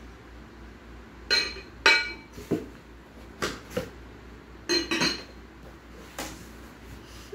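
Glass lid and amber Visions glass-ceramic pot clinking together as they are handled and the lid is set on, a series of about eight sharp clinks with brief ringing, the loudest about two seconds in.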